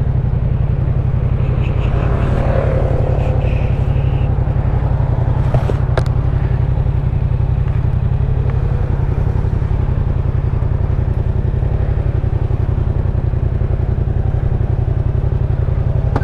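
A 2018 Yamaha MT-07's 689 cc parallel-twin engine, fitted with an Akrapovic titanium exhaust, running steadily at an even idle with no revving, heard close through a helmet microphone. There is a single short click about six seconds in.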